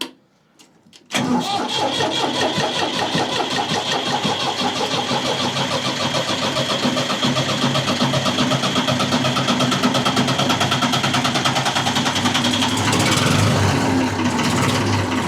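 Ford 4000 tractor engine being started cold: the starter cranks it from about a second in with a steady whine, and after roughly twelve seconds the sound changes as the engine catches and settles into running. A little bit hard cold start, usual for this tractor.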